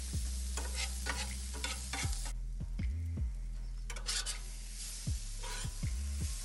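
Shredded hash browns sizzling on a Blackstone flat-top griddle while a metal spatula scrapes, chops and flips them, in quick runs of scraping strokes. A steady low hum with recurring low thumps runs underneath.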